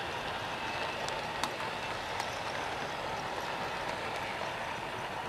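Model passenger train running along the layout track: a steady running noise with a few sharp light clicks about one to two seconds in.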